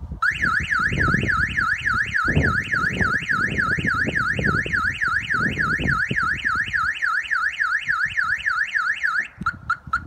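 Clifford 330 X Series car alarm siren triggered and sounding a fast warbling wail, its pitch sweeping up and down about three times a second. It cuts off about nine seconds in, followed by a few short chirps.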